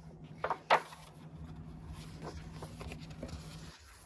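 A few small clicks and one sharp knock about a second in, then soft paper rustling as coloring-book pages are handled and turned, over a steady low hum.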